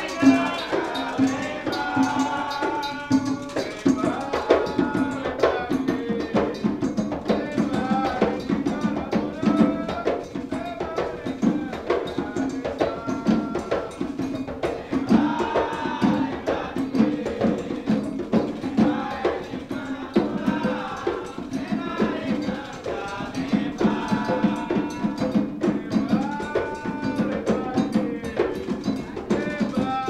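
Percussion music with drums and rattles keeping a steady beat, and singing voices over it.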